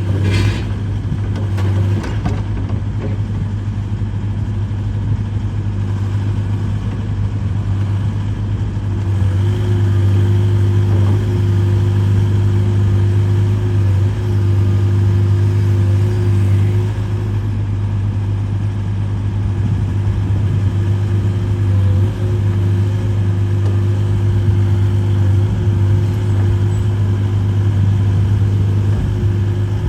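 Hitachi ZX140W-3 wheeled excavator's diesel engine running steadily. About nine seconds in it gets a little louder, with a higher steady tone added, which holds to the end. A short sharp click at the very start.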